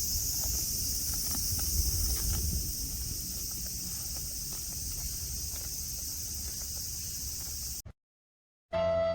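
Cicadas singing in a steady high-pitched chorus, with a low rumble and faint scattered clicks beneath it. The sound cuts off suddenly near the end, and after a brief silence, soft background music begins.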